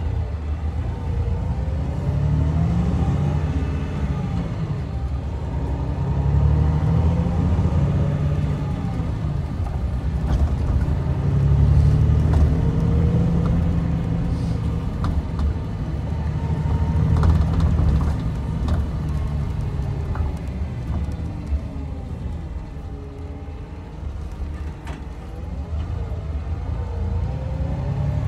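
Coach's diesel engine and road noise heard from inside the passenger cabin while driving, the engine note rising and falling several times as it speeds up and slows.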